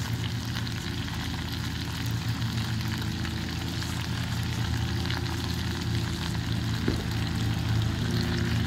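Head-on shrimp with tomatoes and garlic frying in an electric skillet: a steady sizzle with fine crackles. Underneath runs a steady low engine-like drone.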